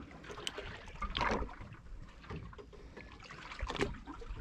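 Sea water lapping and splashing against the hull of a fishing boat, with two louder splashes, one about a second in and another near the end.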